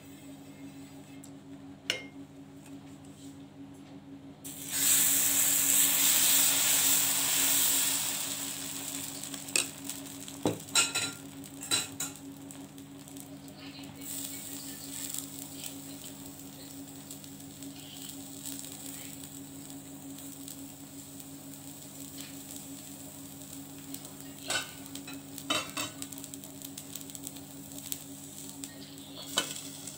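Hot oiled iron tawa sizzling. A loud sizzle starts suddenly about four and a half seconds in, as uttapam batter goes onto the pan, and dies down over a few seconds to a quieter steady sizzle. Now and then there are sharp clicks of a ladle and utensils against the pan and bowl.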